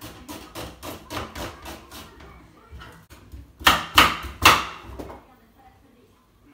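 Kitchen knife chopping on a wooden cutting board: a quick run of light knocks through onion, about four or five a second, then three louder chops through carrots about four seconds in.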